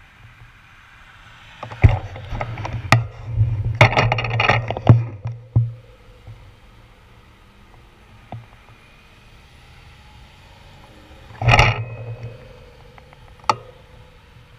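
Sharp knocks and rattles on a handlebar-mounted action camera as the bicycle is shifted while stopped: one cluster about two seconds in that lasts several seconds, and a shorter one near the end, over a faint steady hum of traffic.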